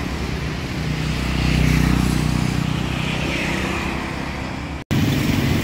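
Motorbike traffic passing on the bridge roadway: a steady engine drone that swells about two seconds in as a bike goes by. The sound cuts out for an instant near the end.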